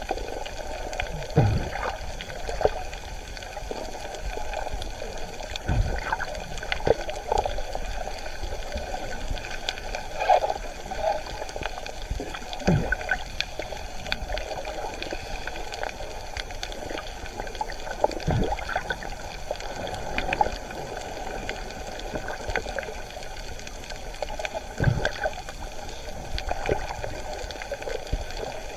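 Water noise recorded with the microphone underwater: a steady, muffled rush with a few dull knocks at irregular intervals.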